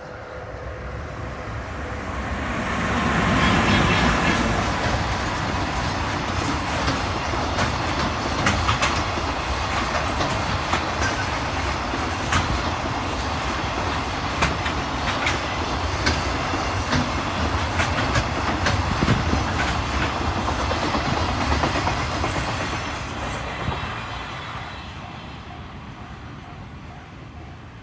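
A freight train hauled by a JR Freight EH500 electric locomotive passes at speed. The locomotive's approach builds to its loudest about four seconds in. Then a long string of freight wagons clatters past with a steady run of wheel clicks over the rail joints, and the train fades away over the last few seconds.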